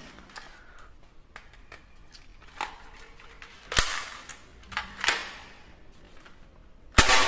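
Sharp plastic clicks and snaps from a toy shotgun being handled, four main ones a second or so apart with fainter ticks between, the loudest near the end.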